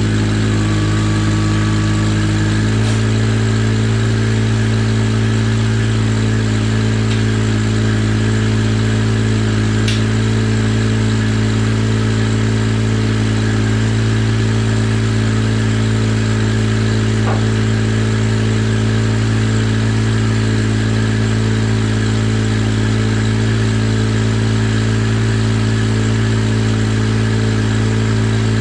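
Ventrac 4500Z compact tractor's engine running at a steady speed, with an even, unchanging hum and a couple of faint clicks.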